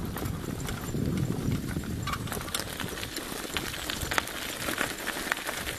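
Brisk footsteps and paw-falls crunching on a dirt and gravel track as two Alaskan Malamutes pull in harness with a person following on the line. A low rumble on the microphone for about the first two seconds, then mostly short clicks and crunches.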